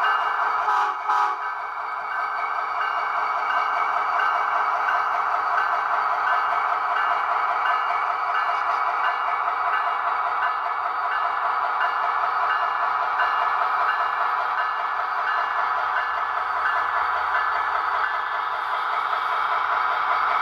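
HO-scale Athearn SD70ACe model locomotive running by, its Tsunami 2 sound decoder playing diesel engine sound through the model's small speaker, steady throughout. A brief sharper sound about a second in.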